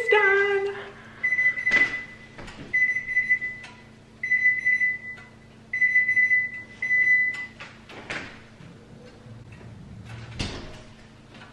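A kitchen appliance's electronic beeper sounding one high tone in five beeps, about one every second and a half, then stopping; a couple of knocks follow later.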